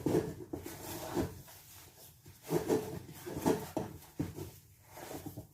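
A spoon stirring, pressing and scraping thick ugali (maize-meal dough) around a cooking pot, in irregular strokes.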